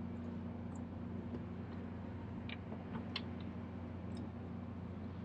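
A motor's low, steady hum, with a few faint scattered ticks over it.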